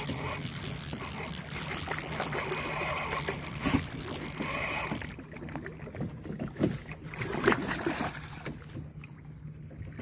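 Spinning reel being cranked while playing a smallmouth bass beside a canoe: a steady whir that cuts off suddenly about five seconds in. Then scattered knocks and bumps against the canoe as the landing net goes in, over a low steady hum.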